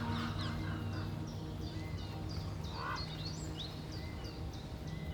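Small birds chirping and calling repeatedly in short, high, quick notes, with one lower, louder call about three seconds in. A faint steady low hum fades out in the first couple of seconds.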